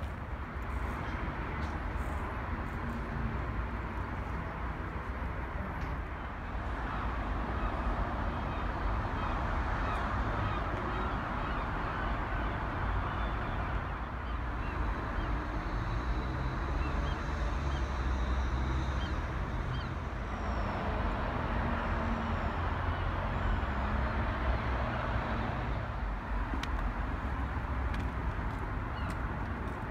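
Steady outdoor background noise: a low rumble with a hiss over it, swelling a little about seven seconds in and again about twenty seconds in.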